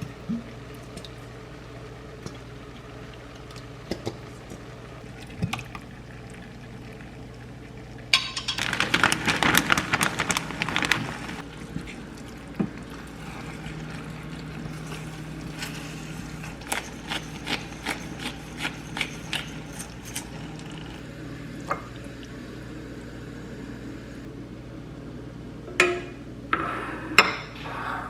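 Kitchen sounds over a steady low hum: a loud burst of liquid pouring for about three seconds, about eight seconds in, then scattered light clicks and taps of dishes, with a few sharper clinks near the end.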